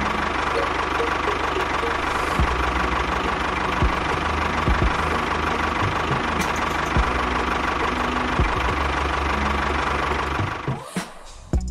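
Tractor engine running steadily at a low, even pace with a few light knocks, fading out shortly before the end.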